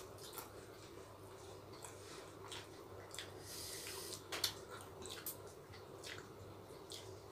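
Faint wet eating sounds: fingers mixing rice with curry and mouths chewing, heard as scattered small clicks and smacks, with one sharper smack a little past halfway.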